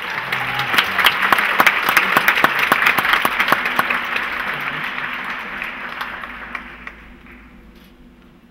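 Audience applauding, loud at first and dying away over the last few seconds.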